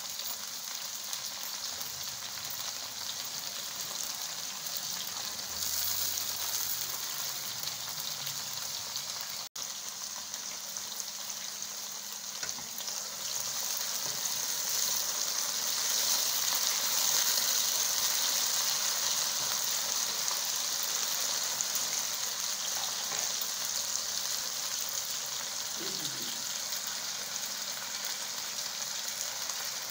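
Cut okra frying in hot oil in a kadai: a steady sizzle that grows louder towards the middle and then eases slightly.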